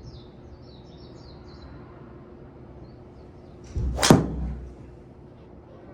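Titleist TSR4 driver striking a golf ball: one sharp, loud crack about four seconds in, with a brief ringing tail.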